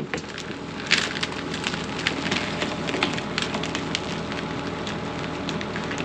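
Steady run of crackles, snaps and rustles from storm debris and maple pipeline being pulled and handled, over a steady engine hum.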